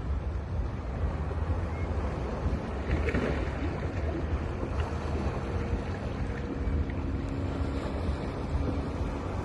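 Sea waves washing onto a beach in a continuous surge, with a swell about three seconds in. Wind buffets the microphone with a low rumble.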